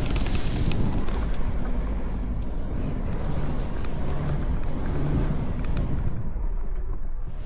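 Steady low rumble of a vehicle in motion, with wind noise on the microphone.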